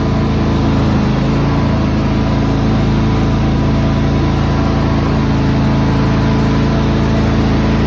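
John Deere X330 lawn tractor's engine running steadily at constant speed.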